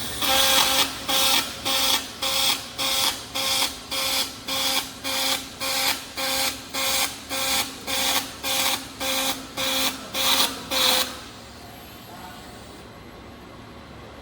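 Robotic arc welding torch striking in a quick even rhythm, about eighteen sharp crackling bursts roughly 0.6 s apart over a steady electrical hum. The bursts stop about 11 seconds in, and the hum continues.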